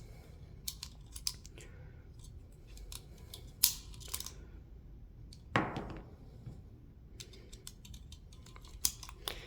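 Blank cartridges being pressed into a Retay PT23 blank pistol's magazine: a series of small clicks, with a heavier knock about five and a half seconds in.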